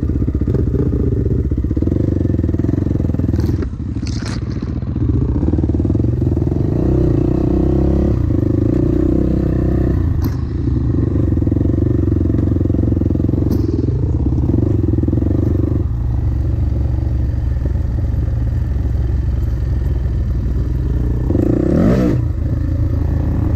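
Dirt bike engine running steadily on a bush trail ride, the throttle closing briefly a few times, then revving up near the end.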